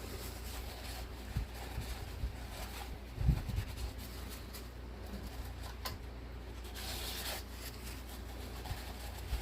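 Soft rubbing as the wet base of a snow globe is wiped dry to prepare it for a hot-glue seal, with a low thump about three seconds in and a steady low hum underneath.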